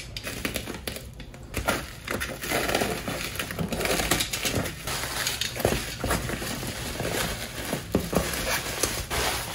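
Bubble wrap crinkling and rustling as it is handled and pulled away, with plastic packing tape being cut and peeled off, in a steady run of irregular crackles.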